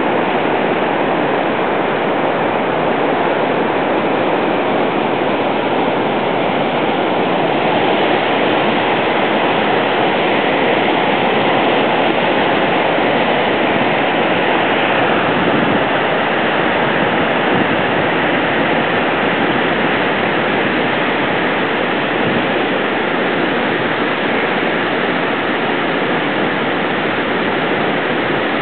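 The Potomac River in flood after days of heavy rain, raging through rocky rapids: a loud, steady rush of whitewater.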